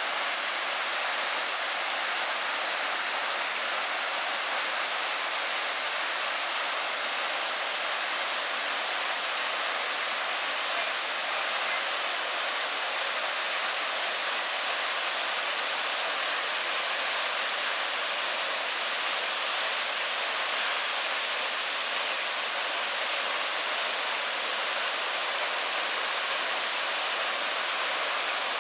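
Steady rush of falling water from a waterfall, an even hiss with no breaks or changes.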